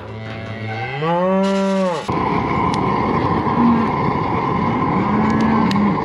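Cattle bawling: one long moo rising in pitch in the first two seconds, then fainter moos every second or two. About two seconds in, a loud steady rushing noise starts abruptly and carries on under the moos.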